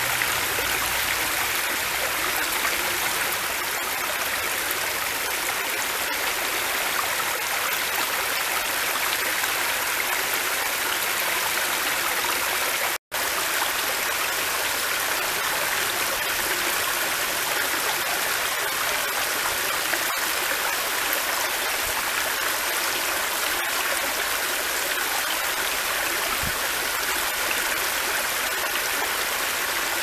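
Shallow creek water running and splashing down small stepped limestone ledges in a low, steady rush, like a desktop water fountain. The sound drops out for a split second about halfway through.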